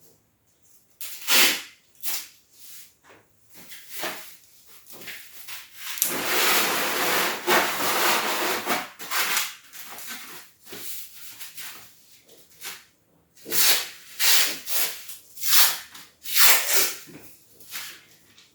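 Tape pulled off a roll and pressed along a seam of foam floor underlay: several short, sharp rips and one longer pull of about three seconds, with rubbing and rustling of the foam sheets.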